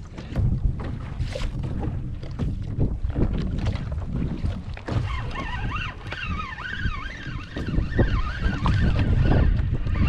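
Wind buffeting the microphone on open water, with water slapping against a kayak's hull and scattered knocks. From about halfway through, a wavering high chirping sound runs over it.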